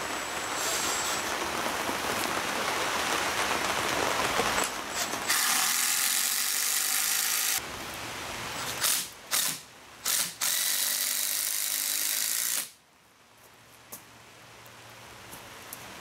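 Cordless drill driving long screws into a laminated wooden bow knee. There are several long runs of the motor and a couple of short trigger bursts, and it stops abruptly about three-quarters of the way through. The screws are temporary clamps holding the epoxied joint until the glue sets.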